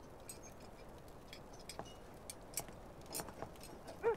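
Quiet ambience with scattered faint clicks and taps. Near the end, an owl begins hooting in short, repeated calls.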